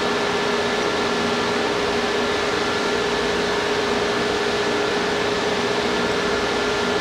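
A fan running steadily: an even rushing noise with a constant hum that does not change.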